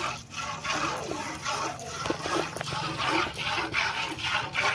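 Jets of milk squirting from a cow's teats into a steel bucket during hand milking, a quick hissing spurt about twice a second in a steady rhythm.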